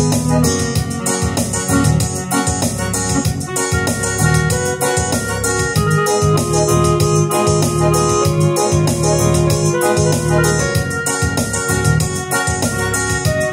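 Yamaha arranger keyboard playing a gaúcho tune, with sustained organ-like melody notes over a bass line and a steady drum beat with regular hi-hat ticks.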